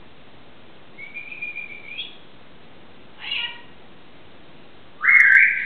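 Airedale terrier whining in short high-pitched cries: a thin rising whine about a second in, a brief cry about three seconds in, and a louder, longer whine near the end.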